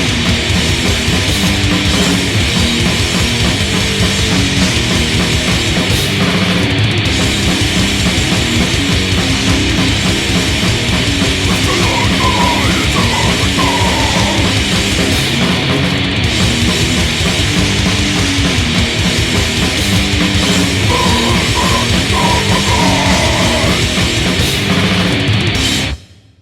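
Loud, dense heavy punk/metal band recording, playing without a break and stopping abruptly near the end.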